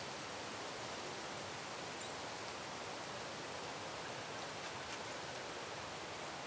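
Country field ambience: a steady, even hiss of outdoor background noise, with a few faint, brief high chirps scattered through it.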